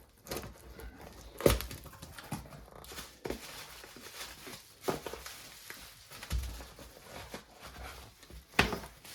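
A parcel being opened by hand: rustling and scraping of box and packing material, with a handful of sharp knocks about every one and a half to two seconds.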